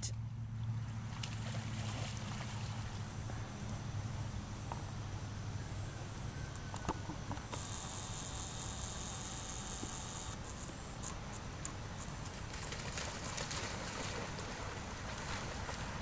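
Dogs wading and swimming in a pond, with light water splashing over a steady low hum. A high, steady buzz sounds for about three seconds in the middle.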